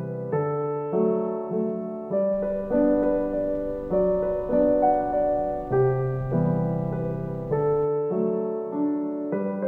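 Background music: slow, gentle piano playing sustained chords, a new note or chord about every half second.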